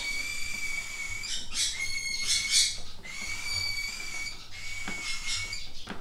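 Cockatiels calling: a series of about four drawn-out whistled calls, each about a second long and held at a steady pitch.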